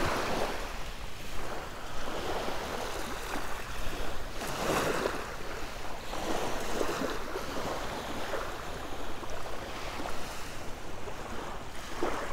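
Small waves washing up onto a shell-and-gravel beach, a hissing wash that swells and eases several times, with wind buffeting the microphone.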